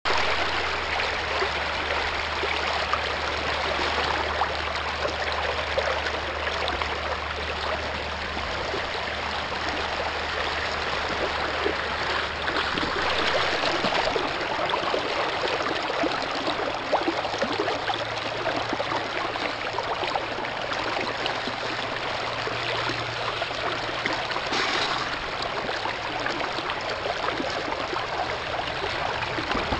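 Water rushing steadily through a Royal 6 x 24 inch stream sluice box and over its mat. A faint low hum sits underneath and stops about 13 seconds in.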